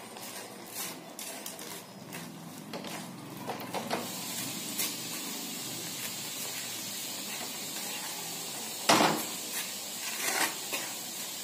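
Vermicelli cooking in sugar syrup in a metal kadhai, stirred and scraped with a spatula, with a steady soft sizzle setting in after a few seconds. Near the end come two sharp knocks of the spatula against the pan, the first the loudest.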